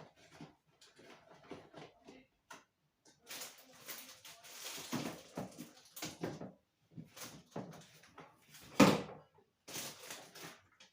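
Medicine boxes and packets being handled and sorted: irregular rustling, light knocks and clatter, with one louder knock about nine seconds in.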